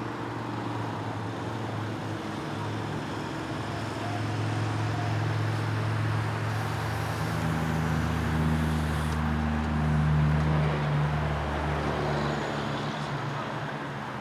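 Motor vehicle engine humming steadily over city traffic noise, growing louder about halfway through and easing near the end.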